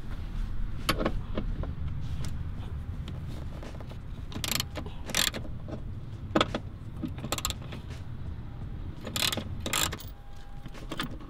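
Scattered sharp metallic clicks and clinks, about seven over the stretch, from hand tools working two 10 mm bolts loose on a bracket in a car's engine bay. A steady low background rumble runs underneath.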